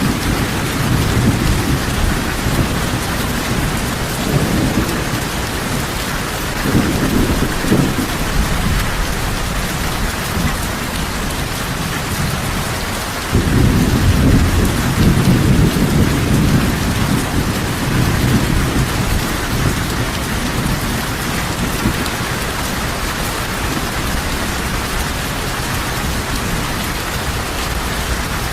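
Heavy rain falling steadily, with low thunder rumbling under it. A fresh rumble sets in abruptly about halfway through and dies away over several seconds.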